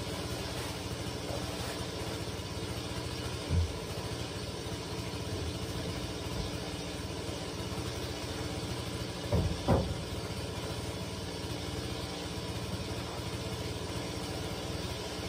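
A small engine running steadily in the background, with a short thump about three and a half seconds in and a louder double thump at about nine and a half seconds.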